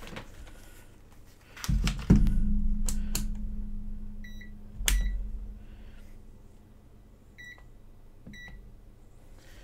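Digital multimeter giving several short high beeps in the second half, with knocks from it being handled and set down, the loudest about two seconds in.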